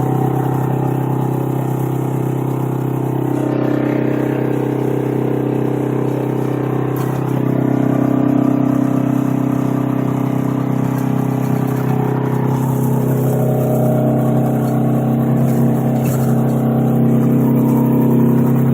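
Straight-piped 8V71 Detroit Diesel two-stroke V8 in a 1980 GMC General semi truck, running under way with its dual straight pipes. Its note steps about three seconds in and again about seven seconds in, then runs a little louder.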